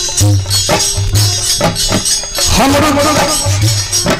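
Live folk stage music: a deep drum beating in a steady rhythm with sharp strikes and a bright jingling percussion layer over it, and a brief pitched melodic line about midway.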